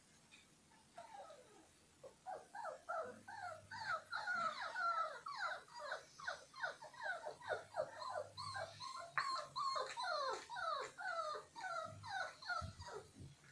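Puppy whining in a long series of short, falling whimpers, about two or three a second, starting about a second in: the puppy's "dog song".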